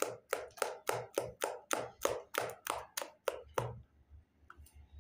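A quick, even run of sharp hand slaps, about three a second, that stops abruptly about three-quarters of the way through.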